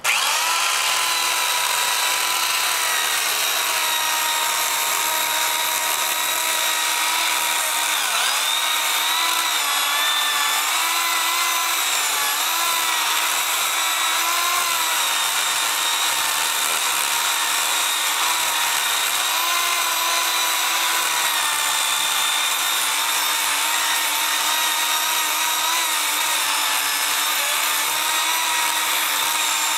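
McCulloch electric chainsaw running with a steady motor whine, its pitch dipping and wavering from about eight seconds in as the chain bites into woody shrub stems.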